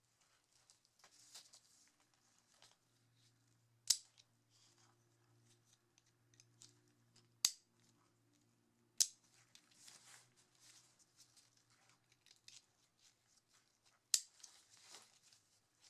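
Plastic side-release buckle on an Arc'teryx Maka 2 waist pack's strap clicking as it is snapped together and pulled apart: four sharp, spaced-out clicks, with nylon webbing and pack fabric rustling between them.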